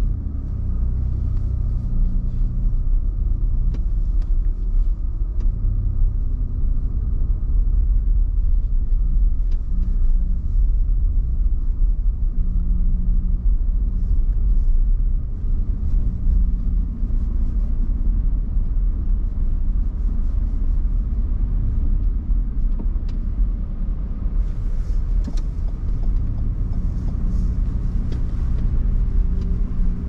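A car driving, with a steady low rumble of engine and road noise and faint scattered clicks over it.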